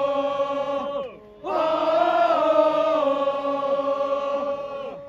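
Crowd of football supporters chanting in unison: two long drawn-out calls, the first tailing off with a falling pitch about a second in, the second starting after a brief pause and held for several seconds before sliding down and fading near the end.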